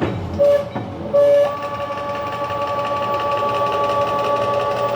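Stepper motor on a CNC-converted PM-727M milling machine driving an axis: two short whines, then a steady, even whine from about a second in.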